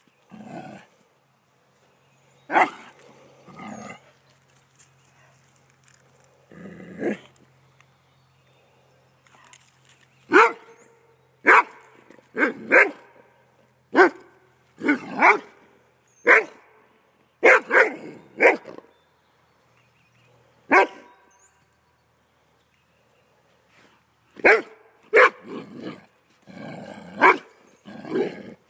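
Doberman barking at a garter snake: short sharp barks in irregular bouts, with a pause of a few seconds about three quarters of the way through.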